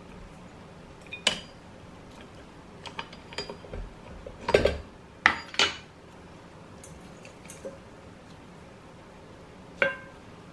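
Stand mixer's stainless steel bowl and metal dough hook clinking and knocking as kneaded dough is worked off the hook and the hook is removed: several separate knocks with a short metallic ring, the loudest around the middle.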